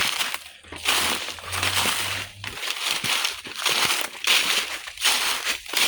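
Footsteps crunching and rustling through dry leaves, twigs and brush, one step roughly every second.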